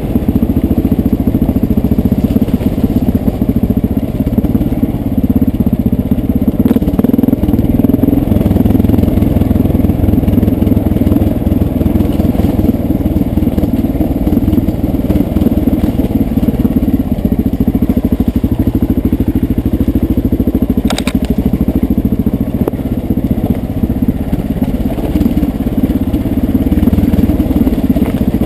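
1989 Honda XR600's single-cylinder four-stroke engine running steadily while the bike is ridden along a dirt trail, heard from on board. A single sharp knock comes about three quarters of the way in.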